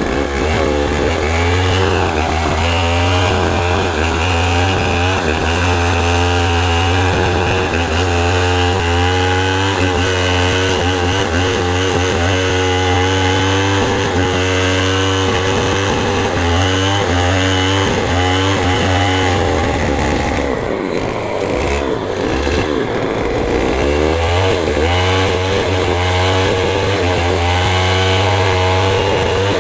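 Power tool cutting wood: a steady low motor hum with a cutting tone above it that wavers up and down continually. It eases off about twenty seconds in and picks up again a few seconds later.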